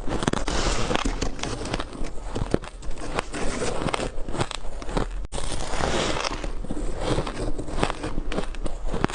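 Close-miked bites into ice: a dense run of sharp cracks and crunching as the ice breaks between the teeth and is chewed.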